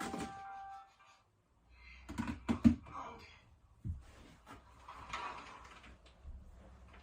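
Background music that stops about a second in, then a cluster of sharp knocks and clatter from household things being handled in a small room, a single thump, and soft rustling.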